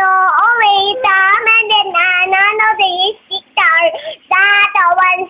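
A toddler girl singing in a high voice: held, steady notes in short phrases with brief breaks between them.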